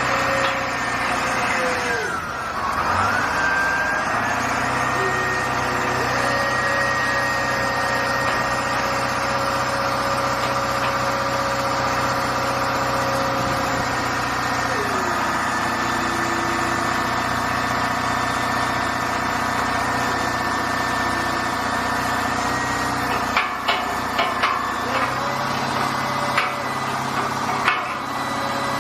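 Excavator diesel engine and hydraulics running steadily. The pitch dips and recovers a couple of times as the machine takes load. A few sharp knocks come near the end.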